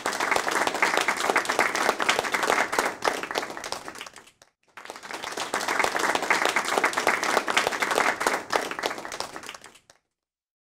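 Applause from a crowd: dense clapping in two stretches, broken by a brief gap about four and a half seconds in, and cutting off abruptly near the end.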